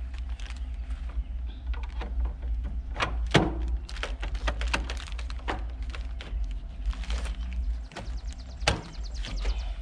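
Knocks and clacks from hands working the Haswing Cayman trolling motor's mount and hardware, with a loud knock a little over three seconds in and another near the end, over a steady low rumble.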